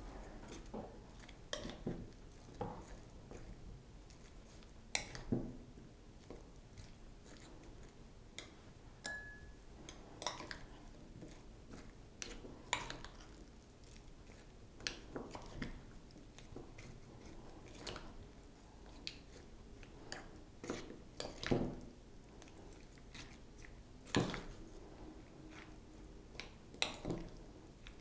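Chopped salad being mixed in a bowl into its creamy dressing: irregular soft clicks, knocks and squishes of a utensil against the bowl and the wet ingredients.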